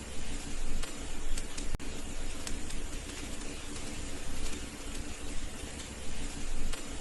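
Fire burning in a fireplace: a steady hiss and low rumble with scattered sharp crackles and pops.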